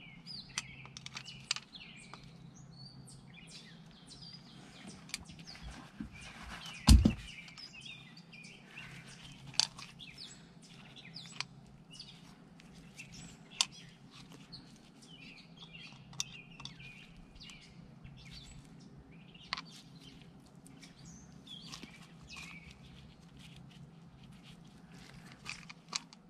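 Birds chirping in the background, with scattered small clicks and knocks from handling a distributor cap and spark plug wires. One louder thump comes about seven seconds in.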